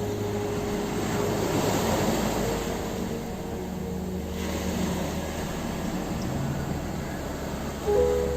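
Ocean waves washing onto a shore, the surf swelling twice, with soft ambient music of long held notes over it.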